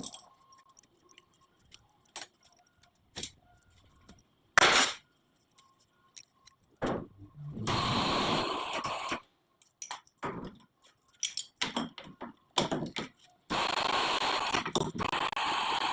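Workshop handling noise: scattered metallic clinks and knocks, one loud bang a little under five seconds in, and two stretches of steady rushing noise, the second starting near the end.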